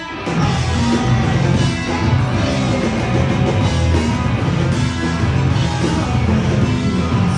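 Rock band playing live: guitars and drums in a dense, loud instrumental passage without singing.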